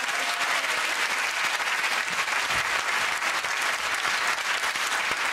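Studio audience applauding steadily, a dense even clapping.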